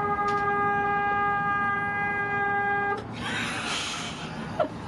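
Sailing boat's foghorn sounding one steady note that cuts off suddenly about three seconds in, followed by a brief rushing noise. The horn is thin, like a small car's horn, and not loud enough for a foghorn.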